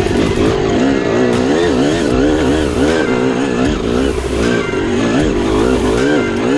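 Dirt bike engine heard on board, revving up and down under throttle on a rough uphill trail, its pitch rising and falling about once a second.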